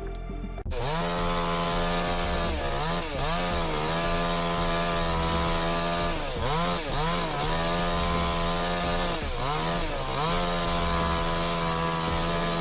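Chainsaw starting about a second in and running at high revs, cutting wood, its engine note dipping briefly and recovering several times.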